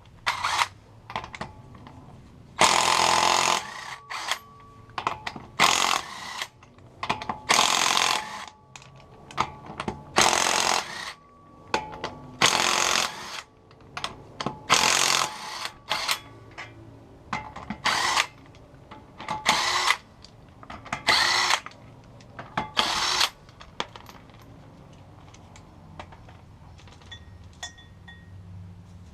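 Impact wrench run in short bursts, about a dozen over twenty-odd seconds, loosening the wheel's lug nuts.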